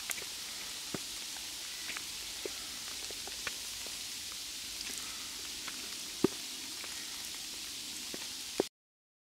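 Sleet of little shards of ice falling: a steady hiss with scattered sharp ticks of ice striking surfaces. It cuts off suddenly near the end.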